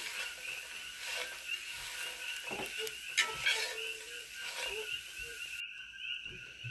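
Cassava hash browns sizzling in a cast-iron skillet while a metal spatula stirs and scrapes them, with a couple of sharper scrapes in the middle; the sizzle cuts off suddenly near the end. Underneath, a steady chorus of coqui frogs keeps calling.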